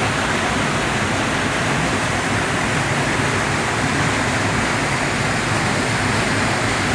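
Mountain creek water rushing steadily over rocks and into pools.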